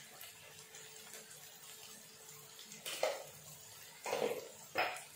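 Faint, steady sizzle of oil frying chopped potato, onion and vegetables in a wok. A few short clatters come in the second half.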